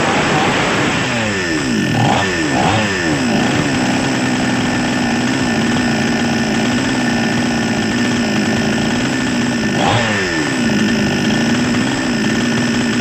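Small two-stroke chainsaw engine running. In the first few seconds its revs drop quickly from high several times and settle into a steady idle; about ten seconds in it is revved once and falls back to idle.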